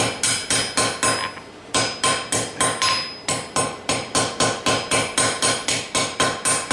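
Hand hammer striking hot mild steel on an anvil in a fast, even rhythm of about four to five blows a second, with a brief pause about a second in. Each blow rings with the anvil's clear tone. The blows are shaping the eye of a forge-welded chain repair link, moving it toward the center.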